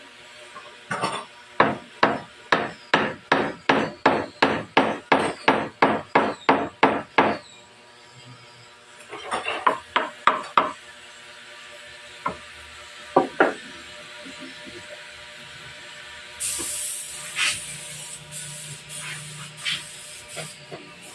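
Hammer striking a wood chisel to chop into a wooden table leg: an even run of sharp blows, about three a second, for some six seconds, then a looser cluster of blows and two last taps. A brief scraping sound and light wooden knocks follow near the end.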